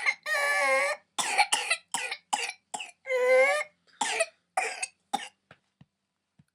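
A toddler's whooping cough (pertussis) fit: a run of short coughs broken by two long, high-pitched drawn sounds, one at the start and one about three seconds in. The coughs weaken and trail off into a few faint catches of breath near the end.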